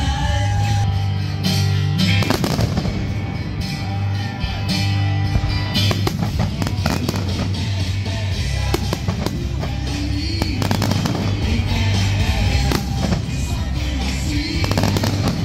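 Fireworks shells bursting in a running series of sharp bangs over loud music with a steady bass line.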